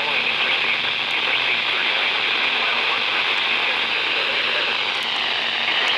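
Steady radio static hiss, strongest in the upper-middle range, from a radio receiver tuned to weather alert broadcasts.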